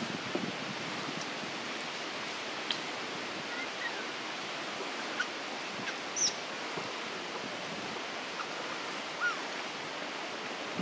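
Steady outdoor hiss of tree-canopy ambience. A few faint short bird chirps and small clicks are scattered through it, with one brief higher chirp about six seconds in.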